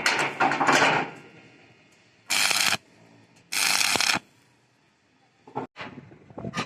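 Stick-welding arc with a 6013 rod crackling for about a second, then two short tack welds of about half a second each, followed by a few sharp metallic clicks near the end.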